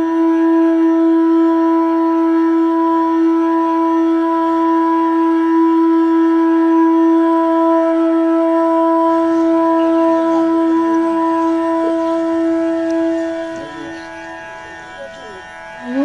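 Background music: one long held note, steady for about thirteen seconds, then falling away, with a new note swelling up at the very end.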